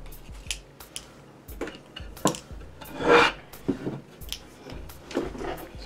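Desk-top handling noise: small clicks and taps with a crinkle of plastic, and a louder scrape about three seconds in as the marble tile is tipped up onto its edge against the desk.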